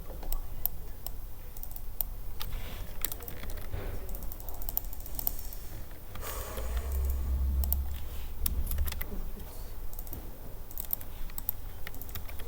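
Typing on a computer keyboard: scattered keystrokes and clicks at an uneven pace, with a low rumble for a couple of seconds in the middle.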